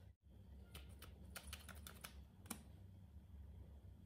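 A quick run of small, sharp sticky clicks as a liquid-lipstick applicator wand dabs onto clear slime, the last click the loudest, over a faint low hum.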